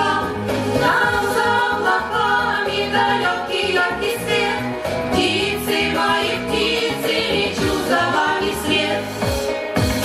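Music: the closing bars of the song, with the backing music playing on and a choir-like vocal sound, but no words.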